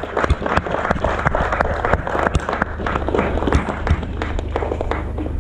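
Small crowd applauding, many irregular hand claps, thinning out near the end.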